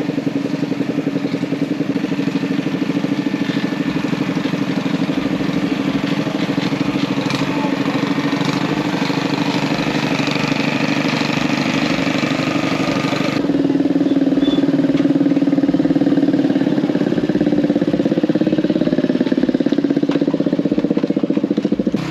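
A small engine running steadily with an even, fast pulse. The sound changes abruptly about 13 seconds in, losing its upper hiss.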